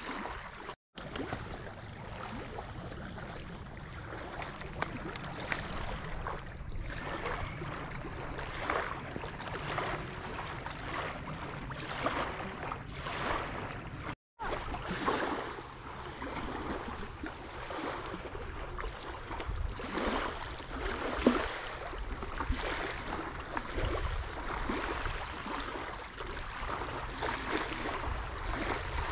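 Small waves lapping and splashing on a pebble lakeshore, with a low rumble of wind on the microphone. The sound drops out for a split second twice, about a second in and near the middle.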